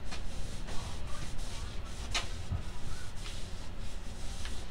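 A rag soaked in mineral spirits rubbed along a painted wooden sledgehammer handle: irregular wiping and scuffing strokes.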